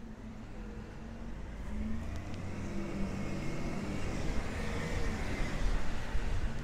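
A car going by on a wet road: tyre hiss and engine noise that grow louder over the first few seconds, with a faint whine that rises and then falls.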